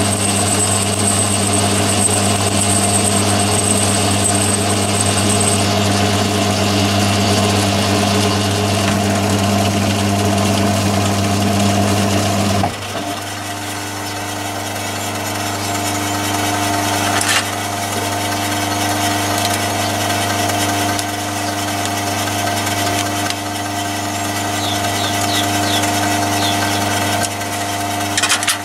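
Myford ML7 lathe running steadily, its spindle turning a boring head with a carbide boring bar that is milling mild steel under power feed. About 13 seconds in the sound drops and settles into a different steady hum, with a sharp click a few seconds later.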